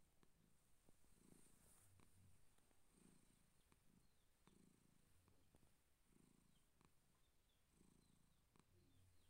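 Persian cat purring faintly, the purr swelling and fading with each breath about every second and a half.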